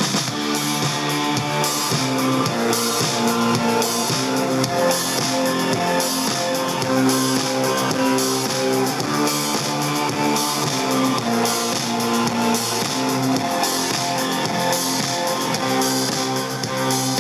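Guitar-and-drums music played from an iPod mini through a PAM8403 class D amplifier board into bookshelf speakers, heard in the room during a test of the amplifier. It plays steadily with almost no deep bass.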